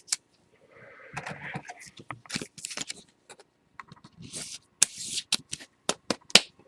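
Trading cards and their packaging being handled: scattered light clicks and taps with short rustles.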